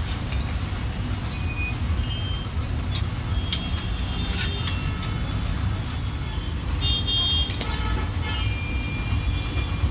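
Steady low rumble of street traffic, with scattered light metallic clicks and clinks, several of them ringing briefly, from a hand tool working on a steel folding-bed frame.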